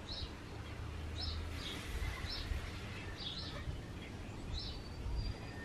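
A small bird chirping outside, one short high chirp about every second, over a faint low hum.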